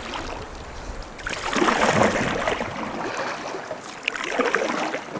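Kayak paddle strokes in a river: water splashing and dripping off the blades. Two louder splashes stand out, the bigger one about a second and a half in and another near the end.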